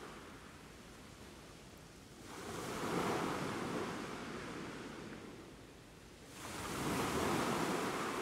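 Sea waves washing onto a rocky shore: two surges about four seconds apart, each building over about a second and then slowly draining away.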